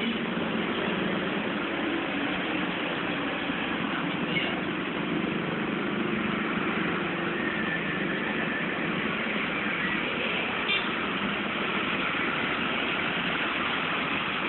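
Steady road traffic noise from vehicles on the road, an even, unbroken rumble without any single standout event.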